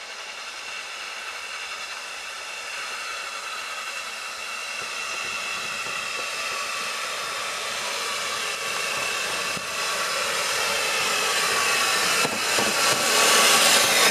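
Two steam locomotives heading a passenger train, led by SECR tank engine No. 178, approaching and passing: a steady hiss with a faint thin high tone, growing steadily louder and loudest near the end as the engines come alongside.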